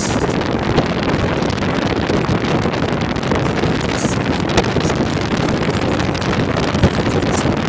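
Steady rush of wind and road noise inside a moving car, with a couple of sharp clicks in the second half.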